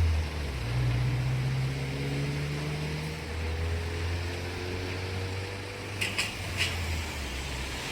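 A vehicle engine running with a low hum that rises slowly in pitch, as if pulling away, with a few short clicks about six seconds in.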